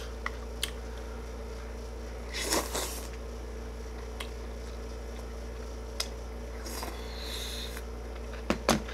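Noodle-eating sounds with chopsticks: a loud slurp about two and a half seconds in, a softer slurp or chewing stretch later, and a few sharp chopstick clicks near the end. Under it runs the steady hum of an air conditioner.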